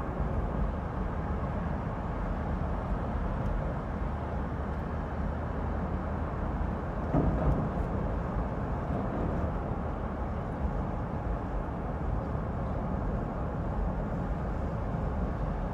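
Road and traffic noise from a car driving along city streets, picked up on its roof: a steady low rumble that swells briefly about seven seconds in.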